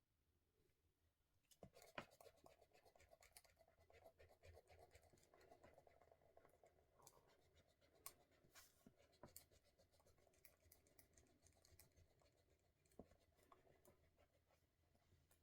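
Faint scratching of a pen writing on paper, with small taps and clicks of the pen. It starts about a second and a half in and thins to occasional clicks near the end.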